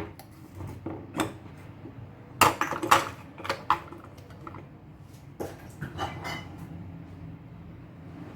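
Kitchen utensils, bowls and seasoning containers clinking and knocking irregularly as they are handled while the eggs are seasoned, with the loudest cluster of knocks about two and a half to three seconds in.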